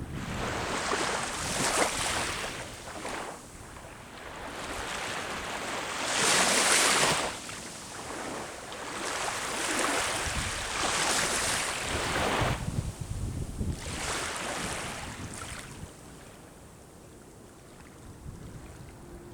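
Sea waves breaking on the shore one after another, each swelling and washing out over a second or two, the loudest about a third of the way through; the surf dies down near the end.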